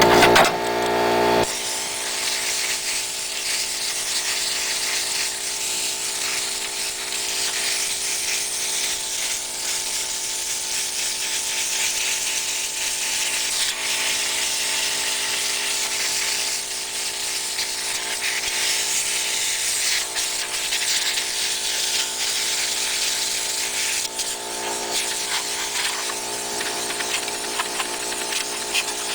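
A motor running steadily with a whine and a constant rush of air, from air-cleaning equipment blowing or sucking the dust off a refrigerator's condenser. It is a little louder for the first second or so, then holds even.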